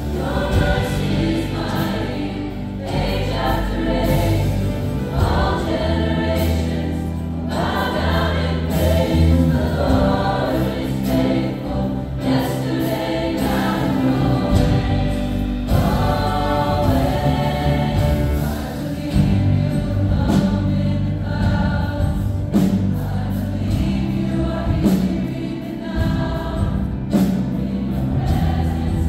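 A choir singing gospel worship music with a band, over a steady bass line.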